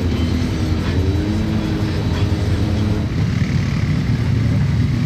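Off-road vehicle engines running, the pitch wavering up and down with throttle for the first few seconds, then a deeper, steadier running from about three seconds in.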